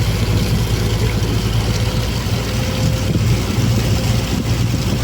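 Boat engine running steadily under way, a loud, even low drone with a faint steady tone above it.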